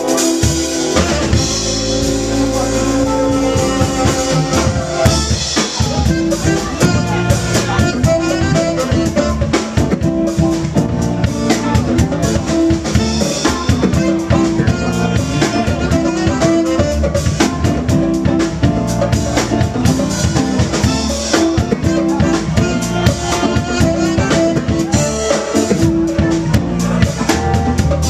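Live rock band playing loud, with a drum kit keeping a steady beat under sustained instrument notes.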